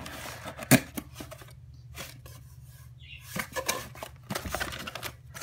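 Product box and its packaging being worked open by hand: a sharp click about three-quarters of a second in, then faint rubbing, and a run of small clicks and rustles from about three seconds in.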